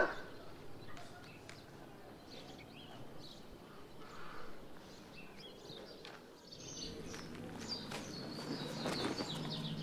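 Faint outdoor ambience with small birds chirping now and then. The background drops away briefly about six seconds in, then returns a little louder, with the chirps more frequent.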